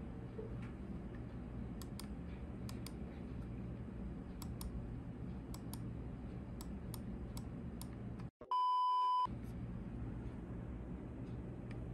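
Vertux Mustang wireless gaming mouse's DPI button clicked repeatedly, in twos and threes. Near the end a short, steady high-pitched electronic beep, the loudest sound, cuts in right after a brief dropout.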